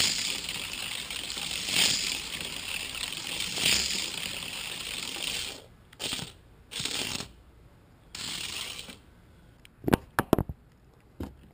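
Hot Wheels Total Control Racing toy car whirring around a plastic track, swelling as it passes close about every two seconds. After about six seconds the sound breaks into a few separate shorter passes, and near the end there are several sharp clicks.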